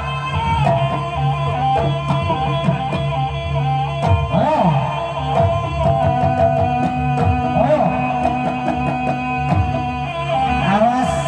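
Javanese gamelan music played for a barongan dance: frequent drum strokes over long steady low tones, with a wavering melody line bending up and down above them.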